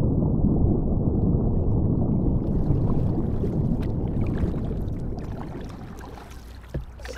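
Low rumbling wind buffeting the microphone over water, fading steadily through the second half and leaving light splashes and drips.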